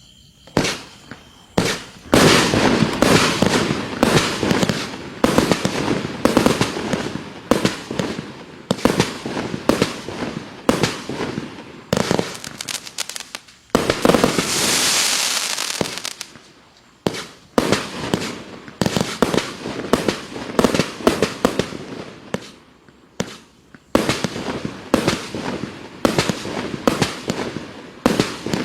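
Klasek Show 256 compound firework cake with 30 mm tubes firing in rapid volleys: shot after shot of lift charges and bursting shells, starting about half a second in. Around the middle there is a hissing spell of about two seconds among the bangs.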